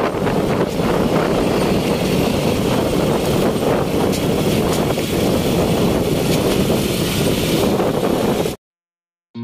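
Road and engine noise of a moving vehicle riding along a concrete road, with wind buffeting the microphone; it cuts off abruptly near the end.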